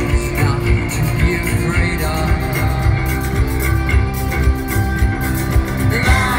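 A rock band playing live in a large hall: electric guitars, bass and drums keeping a steady beat, with a male singer's voice over them.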